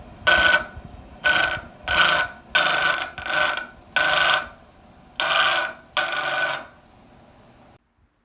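Bathroom exhaust fan making its abnormal noise: about eight irregular bursts of harsh scraping with a squeal in them, over a faint steady hum, then it all cuts off abruptly near the end.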